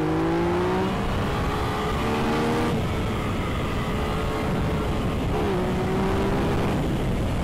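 Yamaha XSR 900's 847 cc three-cylinder engine running under way, its note holding a steady pitch for the first few seconds. It then sinks under a loud rush of wind noise about three seconds in and comes back briefly near the end.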